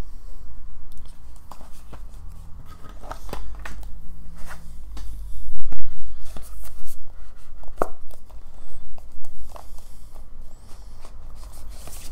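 Hands handling stiff cardstock art cards and a plastic Blu-ray case on a table: paper rustling, slides and light clicks, with a few louder low bumps about halfway through.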